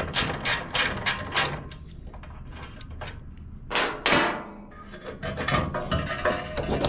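Hand socket ratchet clicking quickly, about five clicks a second, as it backs out a muffler bolt, then one loud clank about four seconds in and more scattered clicks near the end.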